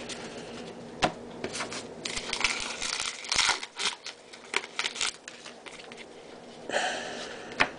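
Baseball-card pack wrapper crinkling and cards sliding and flicking against each other as they are leafed through by hand: irregular rustles and light clicks.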